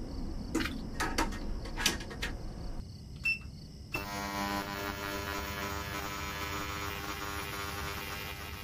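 Metal watch parts clinking as they are set into the stainless steel basket of an ultrasonic cleaner, then a short beep. About four seconds in, the ultrasonic cleaner starts and runs with a steady buzzing hum.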